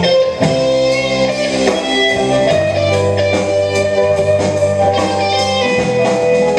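A small band playing live: electric guitar, drum kit with cymbals, and saxophone holding long notes over a steady low bass line.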